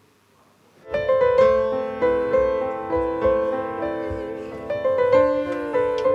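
Grand piano starting to play about a second in, slow held chords with notes ringing on, after a near-quiet start. A wavering higher line rises over the piano partway through.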